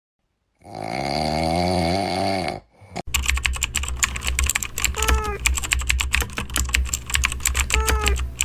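Rapid typing on a computer keyboard, a dense run of clicks over a low hum, with two short falling squeaks over it. Before the typing starts there is a wavering pitched sound lasting about two seconds.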